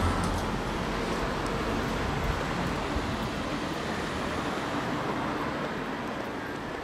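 Steady outdoor background noise with a low, traffic-like rumble and no distinct single event.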